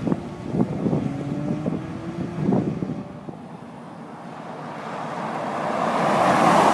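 Vehicle noise with wind on the microphone: a few knocks and rattles, then a rush of sound that builds for about three seconds and cuts off suddenly at the end.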